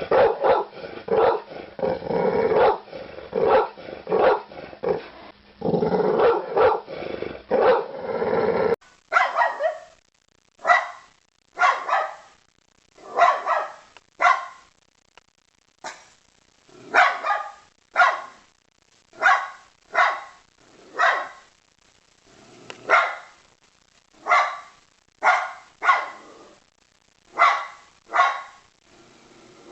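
Dog barking. For the first several seconds there is dense, rapid barking mixed with growling. After an abrupt change to a different recording, single barks come about once a second.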